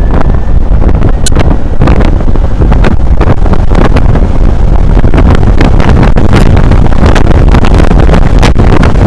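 Loud wind buffeting on the microphone of an electric scooter riding at speed, accelerating hard from about 65 to 90 km/h, with constant low rumble and irregular gusty thumps.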